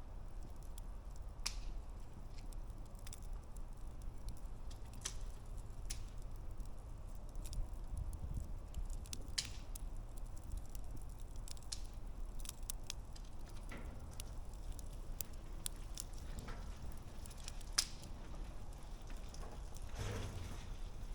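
Wood campfire crackling: irregular sharp pops and snaps from the burning logs over a low steady rumble.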